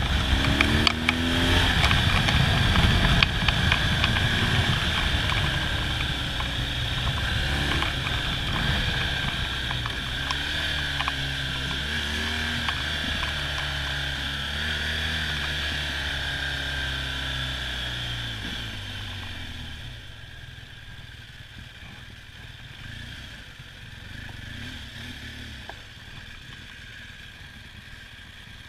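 Motorcycle engine running on the move, its revs rising and falling as the bike rides a winding road, with wind rushing past. About two-thirds of the way through, the engine sound drops away and everything gets quieter.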